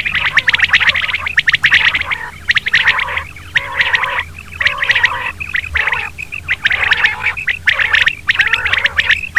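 Recorded chorus of many quails (batair) calling at once: a dense run of rapid, sharp calls in bursts with short gaps, over a steady low hum. It is a quail-call lure recording of the kind played for quail hunting.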